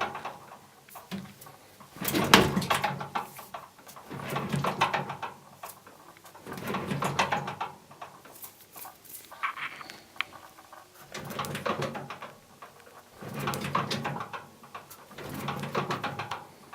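Bosch washing machine knocking: bursts of rapid rattling knocks, each about a second long, recurring roughly every two seconds as the drum turns.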